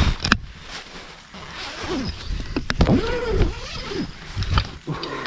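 A nylon tent's zipper is pulled open in a few drawn-out rasps that rise and fall in pitch, with clicks and rustling of the tent fabric as someone climbs out.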